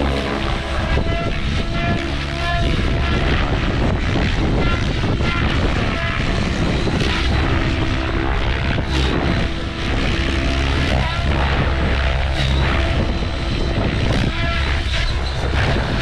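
OMPHOBBY M7 radio-controlled helicopter flying aerobatics, its rotor and drive running with a pitch that shifts up and down through the manoeuvres. Strong wind buffets the microphone throughout.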